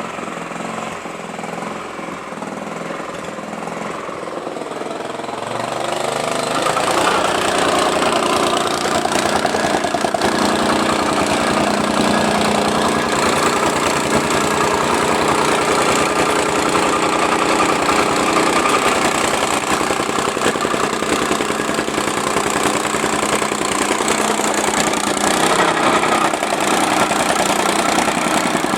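Small-engine tamping rammer running, its engine note mixed with a rapid, even pounding; it grows clearly louder about six seconds in and stays loud.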